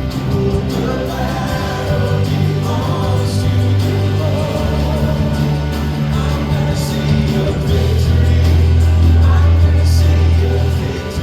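Gospel-style worship music: a band holding sustained low bass notes under group singing.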